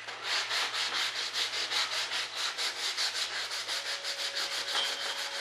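Sandpaper on a hand-held sanding block rubbed quickly back and forth over the primed fuselage of a model jet, a steady rasping at about five strokes a second.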